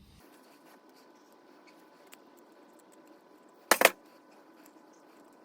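Faint small clicks of metal brake caliper parts being handled, then one loud, sharp clack about four seconds in as the greased handbrake piston assembly is pushed into the caliper.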